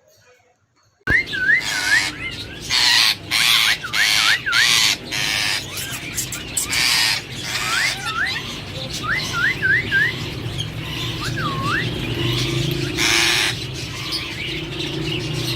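A Psittacula parakeet calling. It gives a string of short rising whistles broken by about a dozen harsh screeches, starting suddenly about a second in over a low background hum.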